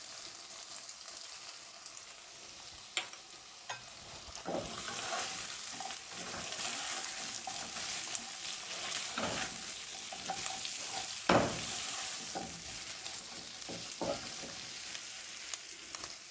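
Sliced potatoes sizzling gently in oil in a nonstick pan on a low flame, while a spatula stirs and turns them, knocking against the pan several times. The loudest knock comes a little past the middle.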